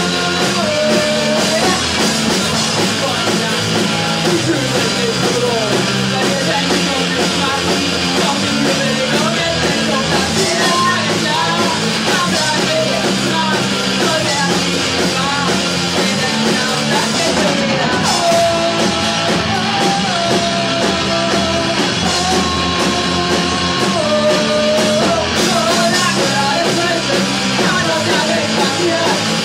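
Loud punk rock song with electric guitars and singing, running at a steady level.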